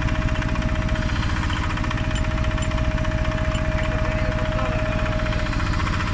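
Engine of a small hydraulic borehole drilling rig running steadily, with a fast even throb and a steady whine held over it.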